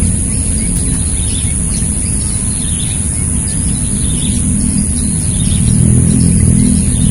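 Steady low engine rumble that swells about six seconds in, with small birds chirping over it.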